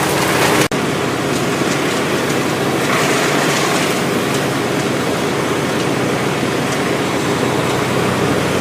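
A gasoline engine of tree-removal equipment running steadily at a constant speed, with a brief break less than a second in.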